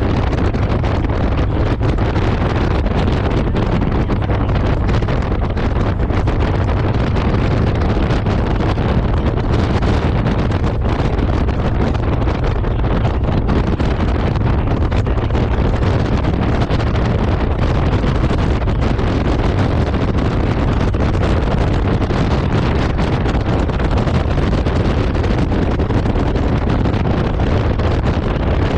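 Loud, steady wind rushing over the microphone of a moving Honda Gold Wing motorcycle, with the bike's running and road noise heavy in the low end underneath.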